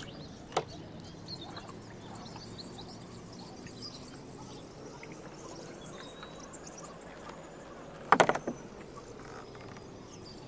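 Water trickling and dripping from a kayak paddle, with a single click about half a second in and a short rattle of loud knocks about eight seconds in.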